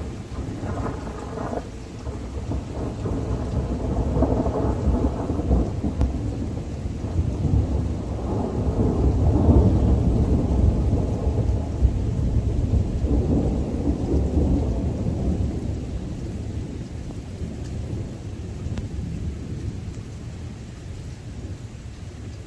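Long rolling thunder rumble that builds to its loudest about nine or ten seconds in, then slowly dies away, with rain falling throughout.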